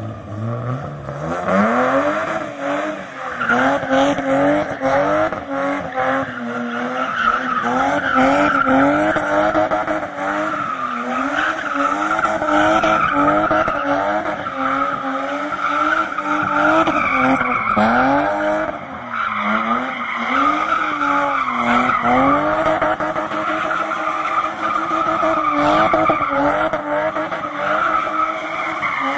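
BMW E30 engine revving up at the start and then held high, its pitch rising and dipping repeatedly, with the rear tyres squealing continuously as the car spins donuts.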